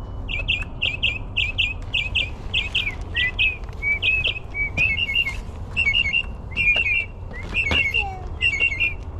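Northern mockingbird song: quick chirped phrases, each repeated several times before it switches to a new phrase.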